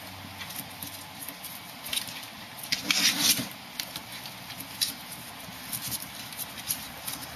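Ferrets' claws scrabbling and scratching on a cardboard box: a run of small scratches and taps, with a louder burst of scratching about three seconds in.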